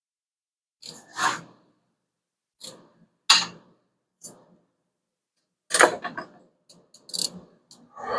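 Metal tools and engine parts knocking and clinking as they are handled during valve-train work on a 5.7 Hemi engine: a series of separate sharp knocks, some ringing briefly, about a second apart, with a few quick clicks close together near the end.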